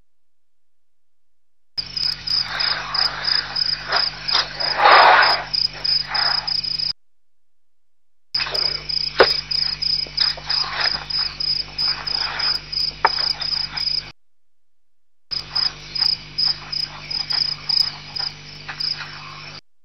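Crickets chirping in a rapid, regular pulse over a steady low hum. The sound cuts out to dead silence at the start and twice more for about a second each.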